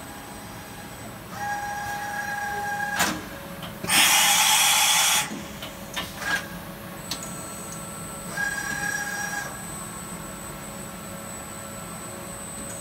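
Deckel Maho DMU 50 Ecoline five-axis CNC machining centre running. A steady electric whine comes and goes twice, a loud hiss lasts about a second at around four seconds in, and there are a few sharp clicks.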